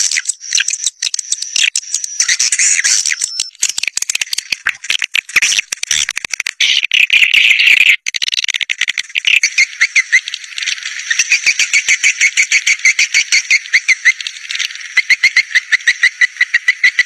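Swiftlet caller recording: dense, rapid chirping and twittering of swiftlets, the lure sound played to draw swiftlet flocks to nesting houses. In the second half the calls run into fast, even trains of clicking chirps, with a thin steady high tone underneath.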